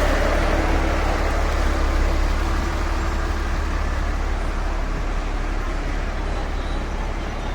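Road traffic noise: a steady wash of passing vehicles with a deep low rumble, easing off gradually.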